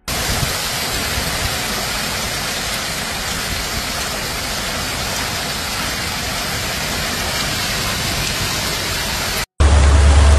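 Heavy rain pouring down, a steady, even hiss. Near the end the sound cuts off abruptly and gives way to a steady low hum under continuing rain noise.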